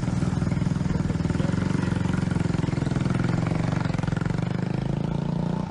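Motorcycle engine running with a steady, pulsing note as the bike rides off.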